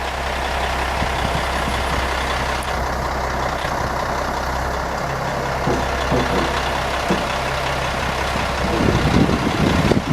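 Concrete mixer truck's diesel engine running steadily, with a low constant hum under a wide wash of mechanical noise.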